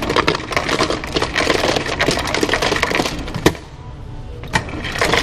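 Ice cubes clattering out of a soda fountain's ice dispenser into a foam cup. The dense rattle fills the first three and a half seconds and ends with a sharper knock. It then eases to a few scattered clicks, with a short burst near the end.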